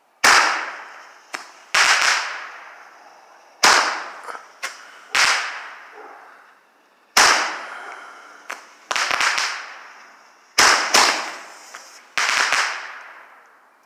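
Phantom Fireworks Air Force Roman candle firing a series of shots. It gives about eight loud bangs, one every second and a half to two seconds, each echoing away over a second or so, with fainter pops in between.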